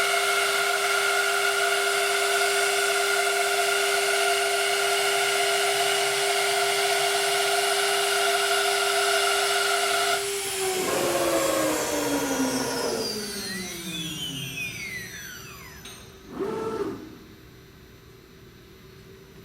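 Spindle of a Quintax 5-axis CNC router running with a steady whine, then spinning down in a falling pitch from about ten seconds in. A brief loud burst comes near the end, and after it only a faint steady hum.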